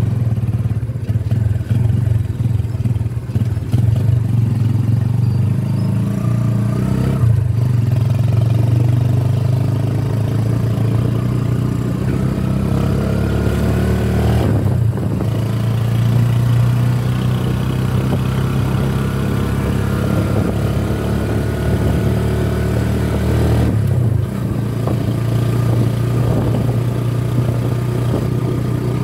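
Small motorcycle engine running under way, a steady low hum whose pitch rises as it speeds up, with three brief drops in the engine sound as it eases off.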